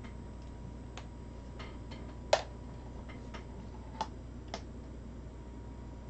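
Scattered light clicks and taps from hands working stripped wires and a small hand tool on an electronics bench, about eight in all, with one sharper, louder click a little over two seconds in.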